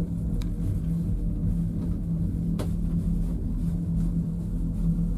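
Ride noise inside a two-seat fixed-grip gondola cabin travelling along its haul rope: a steady low rumble with a constant hum, and a single click about two and a half seconds in.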